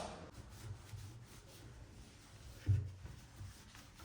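Faint handling and rubbing noises, with one soft thump a little past halfway.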